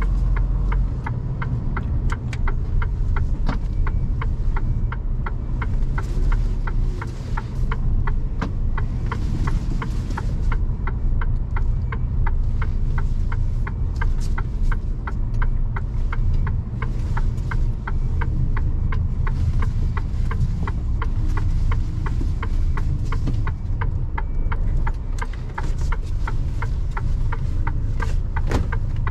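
Inside a Mercedes Actros truck cab: the diesel engine runs with a steady low rumble while the indicator ticks evenly, a couple of ticks a second.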